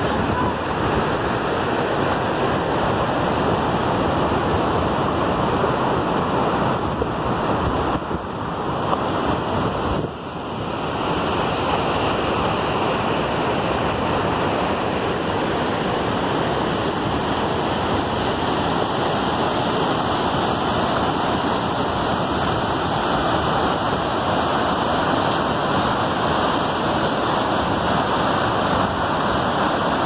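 Waterfall pouring into a churning river pool: a steady rushing of water, dipping briefly twice about eight and ten seconds in.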